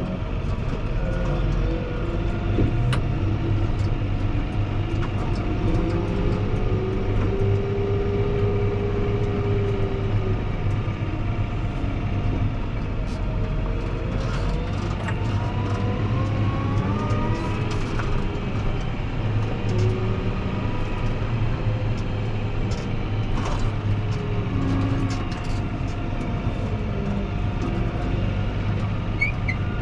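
Fendt 724 Vario tractor's six-cylinder diesel running under load while pushing snow with a front plow, with whining tones that rise and fall in pitch as it changes speed. Scattered short clicks and knocks.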